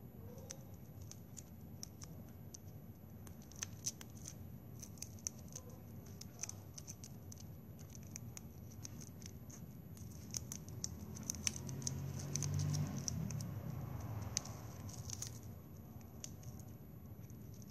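Plastic drinking straws being rolled and handled by hand, with scattered light clicks and scratching. A low rumble swells briefly about twelve seconds in.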